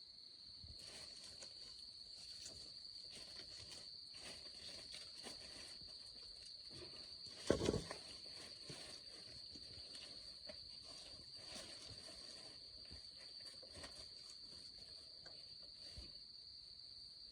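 Insects calling in one steady high-pitched drone, with scattered light rustling and a single louder thump about seven and a half seconds in.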